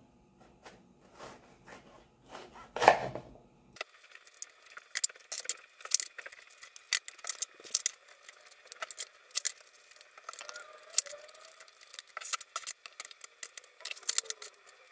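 Chef's knife cutting through crisp green bell peppers on a plastic cutting board, with one loud crunch about three seconds in and then many short crackles and taps of the blade against the board. A spoon scrapes out the seeds.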